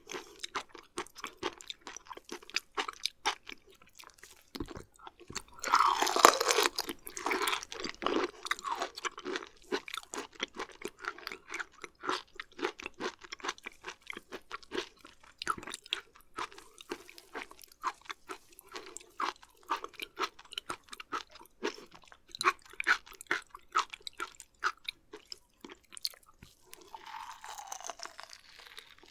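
Close-miked chewing of raw beef offal, liver and omasum: a steady run of wet, crunchy mouth clicks, louder for a couple of seconds about six seconds in.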